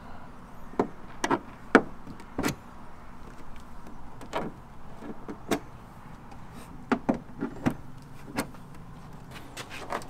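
Sharp plastic clicks and taps, about a dozen at uneven intervals, from plastic trim clips being pried out and handled on a car's trunk trim cover.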